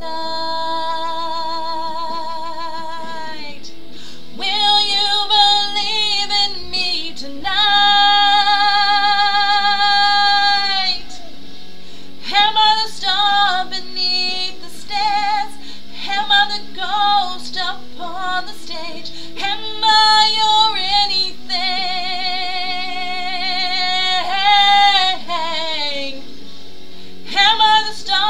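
A woman singing long held notes with a wide vibrato, several of them sliding down in pitch at the end, over steady chords of a backing track.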